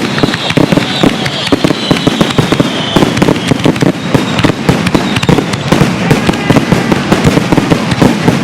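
Fireworks finale: a dense, continuous barrage of rapid shell bursts and bangs, with high whistling over the first few seconds.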